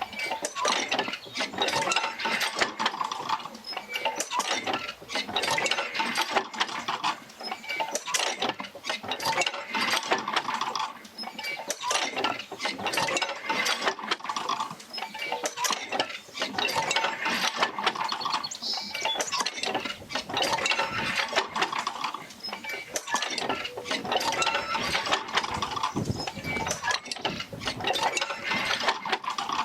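Oil-field field wheel rocking back and forth as the Fitzgerald Rig drives it, sending the motion out along jerker lines to the pumps. A continuous clatter of small knocks and rattles swells once every four seconds or so with each stroke.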